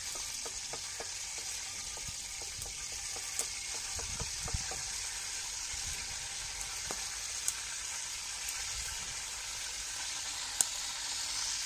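Hot ghee sizzling in a large steel karahi over a wood fire, a steady hiss with a few sharp pops, while it is stirred with a spatula.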